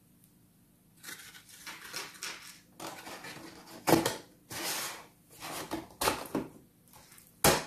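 Cardboard toy box with a clear plastic window being handled: irregular rustling and scraping, broken by a few sharp clicks, the loudest near the end.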